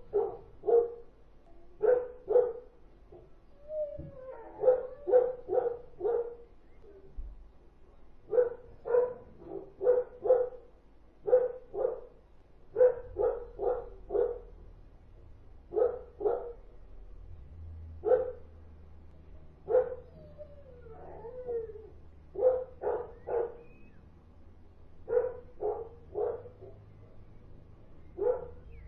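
Dogs barking over and over in quick clusters of two to five barks, with brief pauses between clusters, and a short whining call twice among them. A faint low hum comes in about halfway through.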